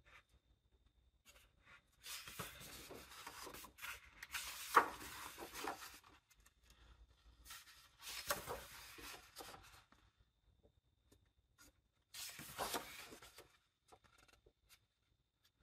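Paper pages of a hardcover book being turned by hand: dry rustling and sliding in three bursts, with a sharp paper snap about five seconds in.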